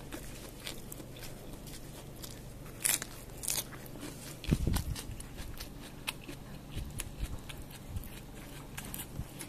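Close-up eating by hand: chewing and crunching, with scattered clicks and scrapes of fingers working rice and sambal in a takeaway food box. There is a louder low thump about four and a half seconds in.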